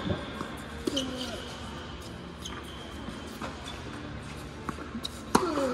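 Tennis rally on an indoor hard court: several sharp racquet-on-ball hits and ball bounces, with short falling sneaker squeaks on the court surface about a second in and near the end.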